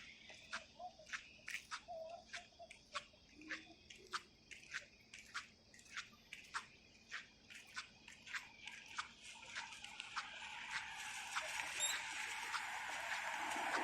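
A steady series of sharp, dry clicks, about three a second, with a rushing noise that swells toward the end.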